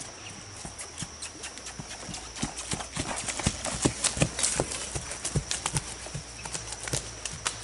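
Hoofbeats of horses walking on a dirt woodland trail scattered with dry leaves, a quick uneven run of steps that is loudest from about three to five seconds in.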